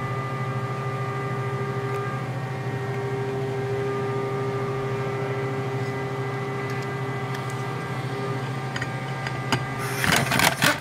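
A steady workshop hum with several fixed tones runs throughout. About ten seconds in comes a short burst of rapid sharp knocks: an impact driver briefly running a Torx bolt into the clutch helix to snug it up.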